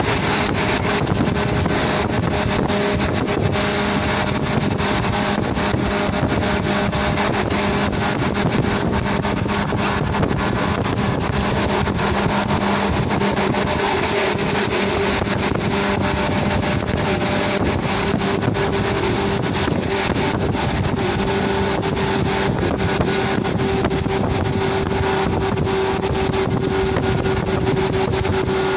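Shinano Railway 115-series electric train running steadily at speed, very loud: traction motor whine over wheel-on-rail noise, with wind buffeting through the open side window.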